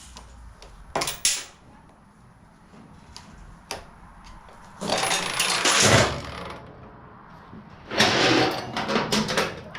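Metal roller chain clinking and rattling as it is taken off the mini bike's sprockets: a couple of sharp clicks about a second in, then two longer stretches of jingling clatter about five and eight seconds in.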